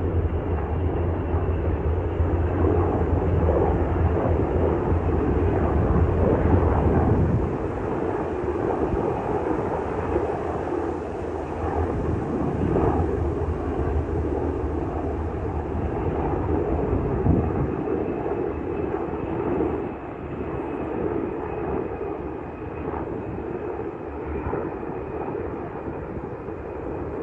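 Sikorsky UH-60 Black Hawk helicopters running, a dense rotor and turbine noise. A deep low throb is strong for the first seven or so seconds, then drops away, and the sound eases off gradually toward the end.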